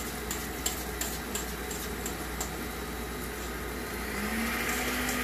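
Stand mixer running, its beater whipping cooked cauliflower into a mash in a steel bowl, with a regular ticking about three times a second. About four seconds in the motor rises to a louder, steady hum as the speed is turned up.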